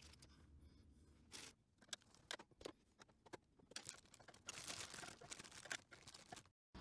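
Faint crinkling and rustling of a clear plastic parts bag as a hand rummages in it, with scattered small clicks.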